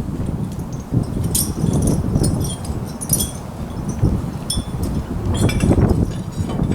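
Electric fence gear being handled and put up: light metallic clinks and jingles now and then, over steady rustling and knocking.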